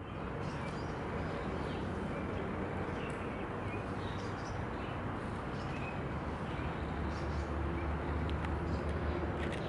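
Steady outdoor background noise with a few faint, short bird chirps scattered through it. A low rumble swells a little about two thirds of the way in.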